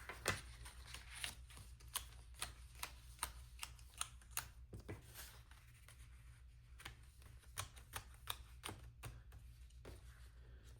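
Faint paper rustling with many small, irregular clicks and taps as pages are handled and fitted back into a mini planner.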